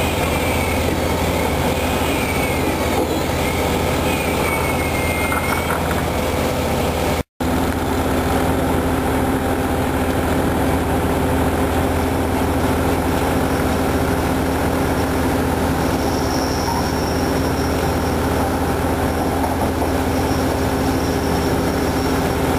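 Construction machinery running steadily: a diesel engine hum under a wavering high whine in the first several seconds. The sound cuts out for an instant about seven seconds in, then the steady hum carries on.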